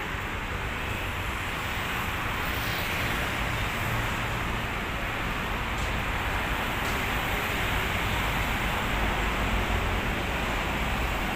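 Steady hiss and low rumble of dense city road traffic running continuously beneath a pedestrian overpass.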